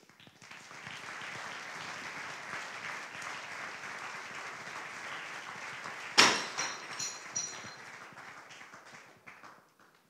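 Audience applauding steadily, with one sharp, louder sound about six seconds in; the clapping then fades away near the end.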